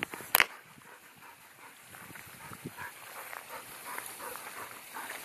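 A dog giving faint, short whines, a few a second, from about two seconds in. Two sharp knocks come right at the start.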